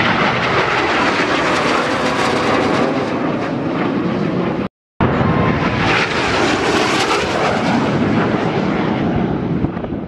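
Jet noise from a Cessna A-37 Dragonfly's twin turbojet engines as it flies past overhead, swelling and fading away. A brief dropout about halfway cuts to silence, then a second pass swells and fades.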